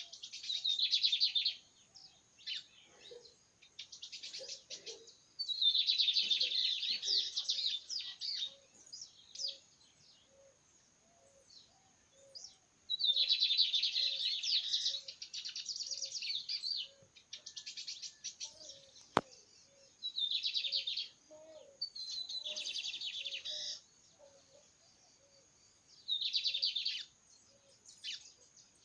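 Songbird known in Brazil as the cigarrinha singing its rapid, machine-gun-like song in repeated bursts of very fast trilled notes, each a second or two long, with short pauses between. A faint low note repeats evenly underneath through much of it, and there is one sharp click about two-thirds through.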